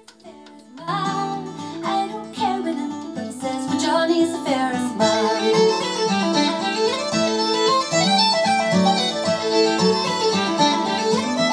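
Music played through a freshly serviced Krell KAV-300i integrated amplifier as a listening test. It fades in about a second in and grows fuller and louder about five seconds in.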